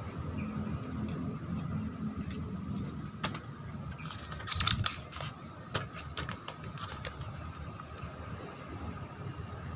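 A spring-powered airsoft pistol, the Tokyo Marui HK USP, being handled: a run of sharp plastic clicks and clacks, loudest in a cluster about four and a half seconds in, over a steady low background rumble.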